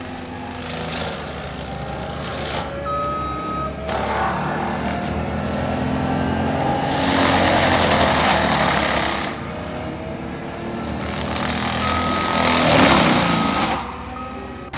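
ASV RT-120 tracked skid steer's diesel engine running under load while its Denis Cimaf forestry mulcher head grinds through brush and trees. The grinding comes in two long, loud surges over the steady engine.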